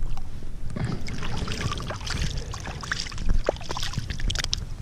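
Water splashing and sloshing as a collapsible wire fish keep net is dunked into shallow lake water, with many short clicks and rattles among the splashes.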